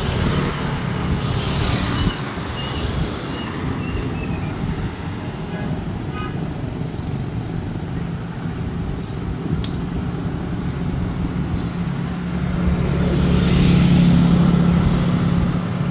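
Steady road and traffic rumble heard while riding along a street. Near the end a motor scooter passes close alongside: its engine hum swells for a few seconds, then fades.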